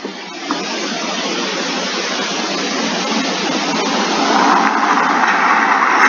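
A car driving fast: a steady rushing noise of engine and tyres that grows gradually louder, with a harsher, higher note building about four seconds in.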